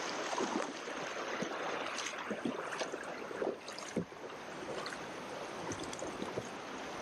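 River water running and gurgling around a kayak, with scattered small splashes and knocks from paddling.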